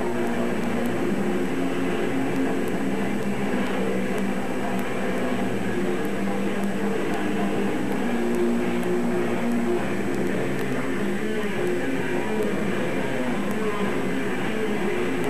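Extreme metal band playing live: distorted electric guitars in a dense, steady wall of sound.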